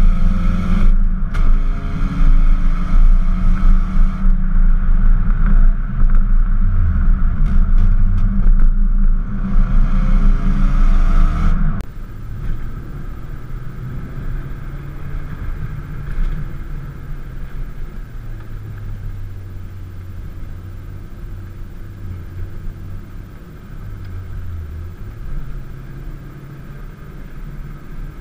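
VW Golf GTI Mk2's 1.8-litre 8-valve four-cylinder heard close at its twin tailpipes: the exhaust is loud, rising and falling in pitch as the car accelerates and shifts gear. About twelve seconds in it switches to the same engine heard from inside the cabin, much quieter, running on with a few rises in pitch.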